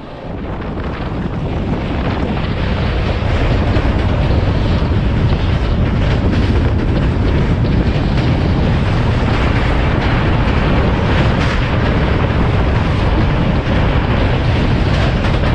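Wind rushing over a microphone held out of a moving train's window, with the train's running rumble underneath. The noise builds over the first couple of seconds, then holds steady.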